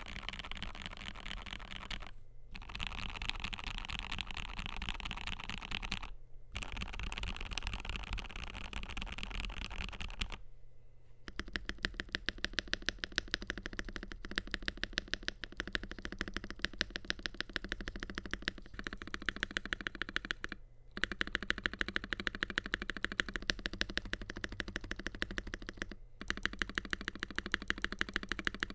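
Typing on a FiiO KB3 mechanical keyboard with lubed Gateron G Pro 3.0 Yellow linear switches in a stainless steel plate. For about the first ten seconds it is a dense, rapid flurry of keystrokes; after that the keystrokes come separately at an even, quick pace. There are a few short breaks.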